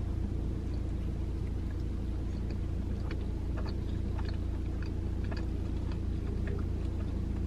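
Steady low hum of a car cabin, with faint scattered clicks and rustles of food being handled in the middle seconds.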